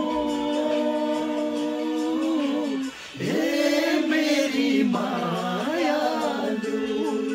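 Men singing a Nepali song a cappella, holding long, slowly gliding notes, with a short break for breath about three seconds in.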